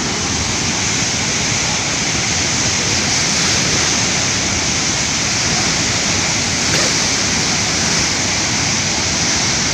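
Floodwater rushing in a swollen stream: a loud, steady roar of fast-flowing water.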